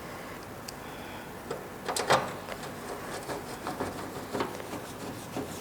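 Scattered light clicks and knocks of a hard disk drive and its fittings being handled inside a desktop computer case, the loudest knock about two seconds in.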